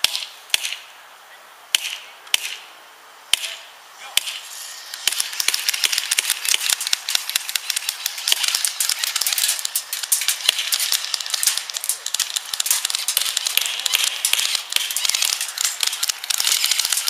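Airsoft guns firing: a few separate shots in the first four seconds, then from about five seconds a heavy, continuous exchange of rapid fire from several guns.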